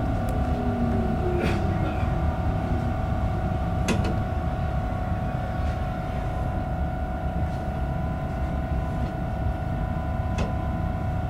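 Inside an Alstom Coradia X60B electric commuter train slowing to a stop: the traction motors' whine falls in pitch over the first few seconds, over a low rumble. A steady electrical hum from the train's equipment continues while it stands, with a few sharp clicks.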